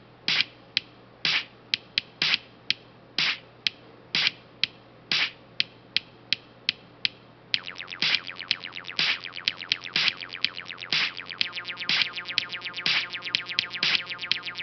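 Music with a sparse percussive beat of sharp clicks and hits, about one main hit a second. About halfway through, a layer of fast repeating pitched notes comes in and the music grows fuller and louder.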